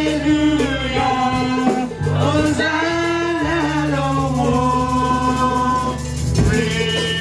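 Music: voices singing a song in long held notes over a steady instrumental accompaniment.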